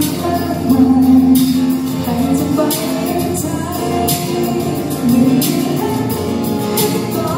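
A woman singing a slow song into a microphone while strumming an acoustic guitar, with long held notes.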